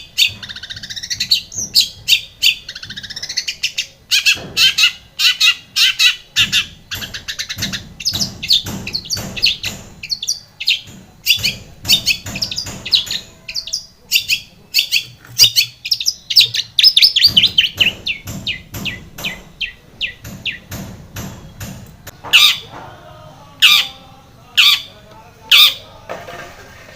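Long-tailed shrike (cendet) singing vigorously: a dense, rapid run of sharp chirps, trills and quick gliding notes. Near the end it breaks into a few loud, harsh single calls about a second apart.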